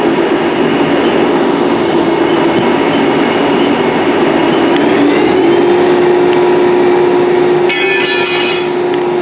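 Haas SL-20T CNC lathe spindle, driven by its 20 hp vector dual-drive motor, spinning up to 3,000 RPM. It runs with a loud steady whine whose pitch climbs and then settles about five seconds in, with a brief high buzz near the end.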